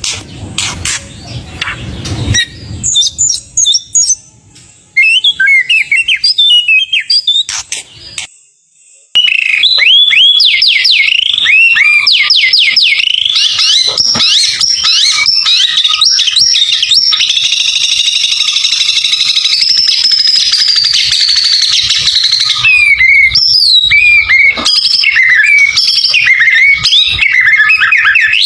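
White-rumped shama (murai batu) singing a loud, varied song of rapid whistled notes and trills, full of mimicked phrases. The song breaks off briefly about eight seconds in, then resumes as a dense, unbroken run of quick notes with a long continuous trill in the middle.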